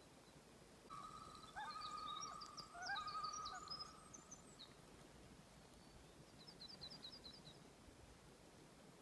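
Faint wild birdsong: a quick trill of high chips, and between about one and four seconds a louder song with a long wavering whistle and rapid high notes. The chip trill returns near the end.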